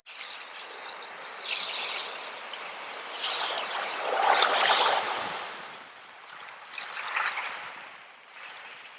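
Sea water washing over and draining back through loose shells, in surges that swell and fade, the strongest about four to five seconds in.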